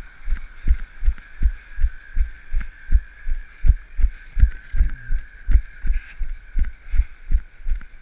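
A runner's footfalls on pavement: steady low thuds, a little under three a second, jolting through the carried camera, over a steady hiss.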